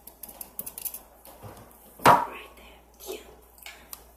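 Close-miked handling of a plastic ice cube tray of ice: light clicks and taps, then one loud sharp crack about two seconds in.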